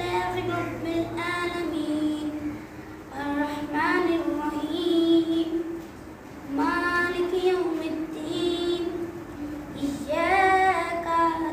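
A high voice singing in long, drawn-out melodic phrases, with short pauses between them.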